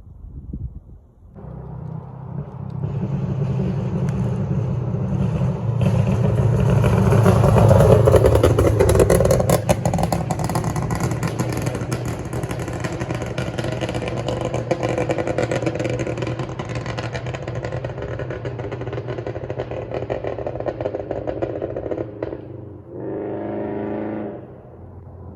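2016 Subaru Crosstrek's flat-four engine and exhaust running on a custom tune. The exhaust note builds over the first several seconds and then holds, with many sharp pops and crackles through the middle. A short, steady droning tone comes near the end.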